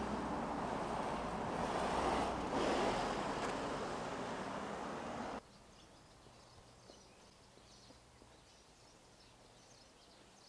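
Road traffic noise, a car passing close by with the sound swelling about two to three seconds in, then cutting off sharply a little after five seconds to a faint outdoor background with a few small ticks.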